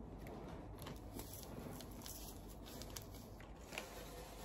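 Faint chewing of a snack, with a few small scattered crunches and clicks.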